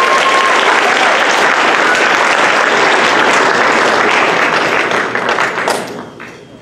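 Theatre audience applauding, a dense steady clapping that dies away about six seconds in.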